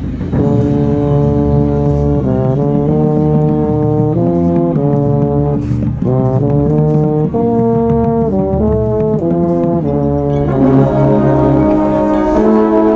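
Marching band brass playing sustained chords that move step by step every second or so over a low bass, swelling fuller and brighter about ten and a half seconds in.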